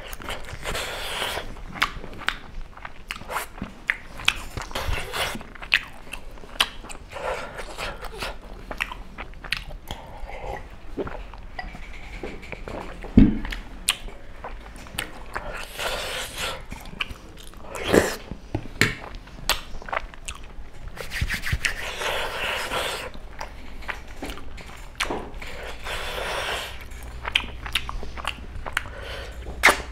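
A man chewing and biting mouthfuls of tteokbokki, chewy Korean rice cakes in sauce, with frequent clicks and scrapes of a fork on the plate and two louder knocks about 13 and 18 seconds in.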